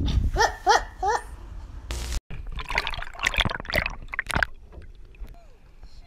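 Three short rising whines from a dog. After a cut, heavy water splashing about two seconds long, as something thrashes in a fishing landing net at the water's surface.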